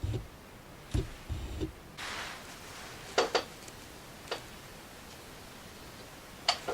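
Autofocus drive of a Sony DT 35mm f/1.8 SAM lens: a brief whir and a series of sharp clicks as focus is driven, with a few low knocks early on.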